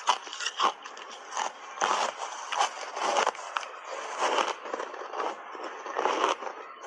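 Crunchy ice made with matcha milk powder being bitten and chewed: a quick, irregular run of sharp crunches and crackles.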